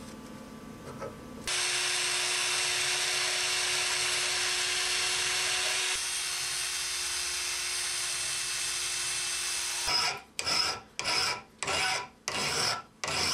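Cordless drill spinning a wire wheel brush against a steel wrench, a steady whine with scratching that starts about a second and a half in, scrubbing off rust and dirt. Near the end it gives way to a hand file scraping the wrench in strokes about two a second.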